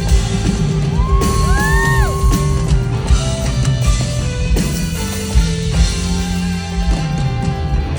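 Live rock band playing loud: drum kit hits over electric guitar, with a note that bends up and back down about a second in.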